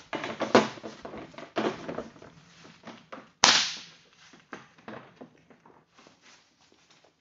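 Packaging wrap on a new ATV being handled and pulled off: a run of rustling and crackling, with one loud sharp snap about three and a half seconds in, thinning out toward the end.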